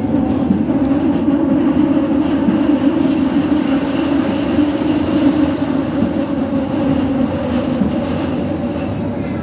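Running noise of a ČKD Tatra KT8D5R.N2 articulated tram at speed, heard from inside the passenger cabin: a steady rumble of wheels on rail with faint steady tones from the running gear over it.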